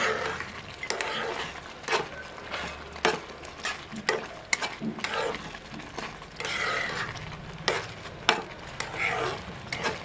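Spatula stirring thick, bubbling broken-wheat kesari in a kadai, with irregular scrapes and knocks of the spatula against the pan and a soft sizzle from the cooking mixture.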